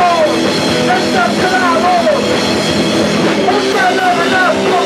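Hardcore punk band playing live and loud: distorted electric guitars, bass guitar and a drum kit, with a vocalist shouting into the microphone.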